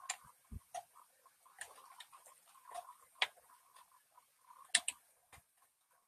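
Irregular clunky taps and clicks of a pen stylus on a graphics tablet, with faint scratching between them while paint is dabbed on. The sharpest tap comes about three seconds in, and a close pair comes near five seconds.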